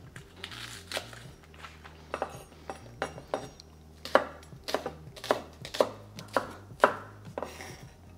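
Chef's knife chopping green onions on a wooden cutting board: sharp knocks of the blade striking the board, a few at first and then about two a second in the second half.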